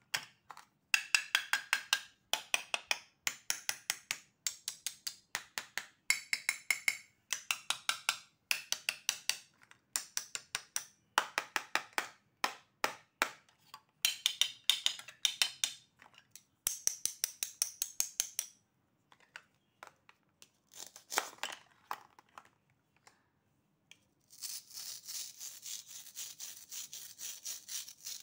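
Plastic toy-food pieces being pulled apart at their hook-and-loop (Velcro) joins: a quick run of short crackling tears, one after another, then a pause and a longer, steadier crackle of about four seconds near the end.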